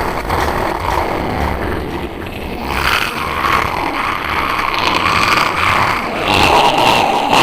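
Harsh, distorted growling and rasping noise effect, steady and loud, with a wavering higher tone coming in about three seconds in.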